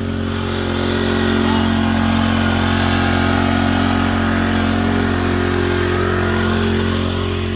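Small gasoline engine of a gold-dredge water pump running steadily at high throttle, an even, unchanging drone.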